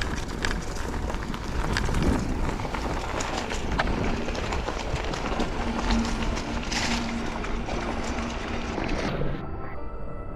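Mountain bike riding down a trail: a steady rush of tyre and wind noise with scattered rattling clicks from the bike. About nine seconds in, the riding noise drops away and steady tones come in.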